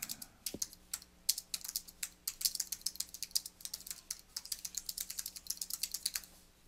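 Computer keyboard typing: a quick, uneven run of key clicks as a sentence is typed. It stops shortly before the end.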